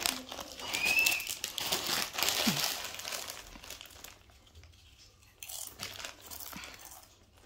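Crinkling of a foil Doritos chip bag being handled and rummaged in, loudest in the first three seconds, then fainter, scattered rustles.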